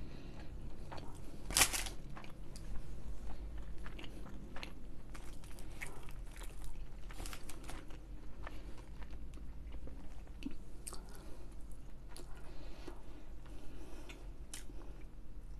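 Close-miked eating: a loud crunchy bite about a second and a half in, then steady chewing with many small crunches and crackles.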